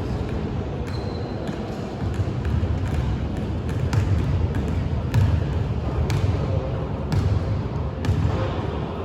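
A basketball bouncing on a court during a game, with sharp thuds at uneven intervals, roughly one a second, over a steady low rumble.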